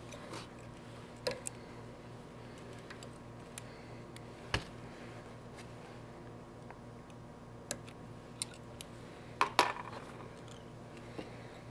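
Scattered small clicks and taps of fly-tying tools being handled at the vise, with the loudest cluster about nine and a half seconds in, over a faint steady hum.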